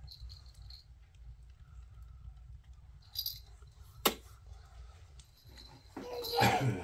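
Scattered light clicks and small rattles over a steady low rumble. Near the end comes a louder clatter as a plastic baby walker with a toy tray is handled.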